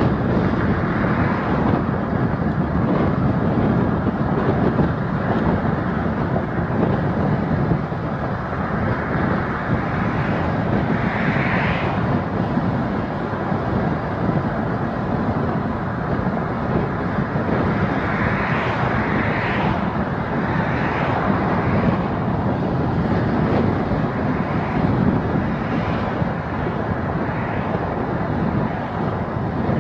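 Steady road and tyre noise of a car driving, with a few brief louder swells near the middle and again later on.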